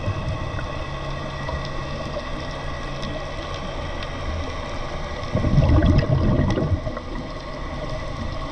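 Underwater scuba breathing: exhaled bubbles from a diver's regulator gurgle for about a second and a half, starting about five seconds in, over steady underwater noise.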